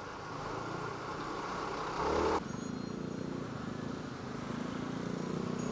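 Motor scooter riding slowly in city traffic: steady engine and road noise. A louder rush of noise stops abruptly about two seconds in, and a steady engine hum follows.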